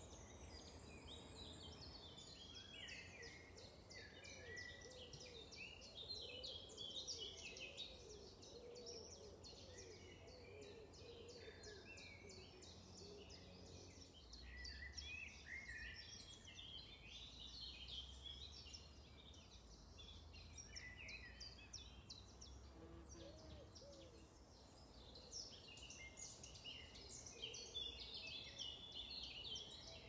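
A chorus of songbirds singing in a spring woodland: many overlapping chirps, trills and whistles, with a lower repeated call through the first half.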